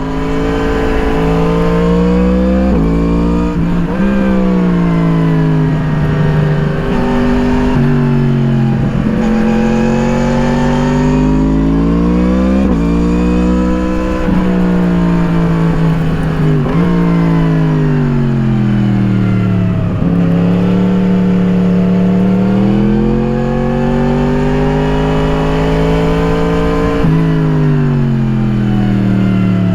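Yamaha MT-10's crossplane inline-four through an Akrapovič slip-on exhaust, heard onboard while riding: engine pitch rising and falling over and over as the rider accelerates and eases off, with several sudden breaks in pitch at gear changes.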